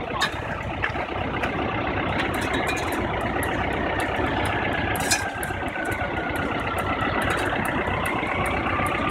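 Caterpillar excavator's diesel engine idling: a steady, even rumble.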